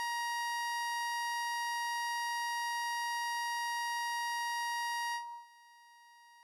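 A steady, high-pitched electronic tone that drops sharply to a faint tone about five seconds in.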